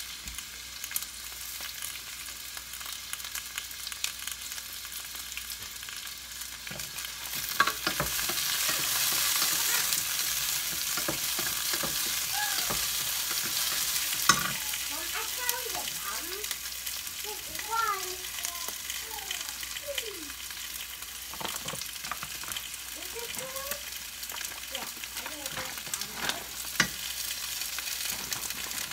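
Vegetables frying in a hot stainless-steel sauté pan: a steady sizzle that swells louder about seven seconds in and eases off after about fourteen seconds. A wooden spoon stirs and knocks against the pan now and then.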